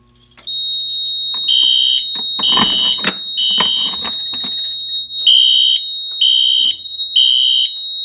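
FCI FC-2224 fire alarm system in alarm after a Simplex 4250 pull station is pulled. A horn sounds the temporal-three evacuation pattern (three half-second blasts, a pause, then three more) over a steady high tone that starts about half a second in. A few handling clicks come around the middle.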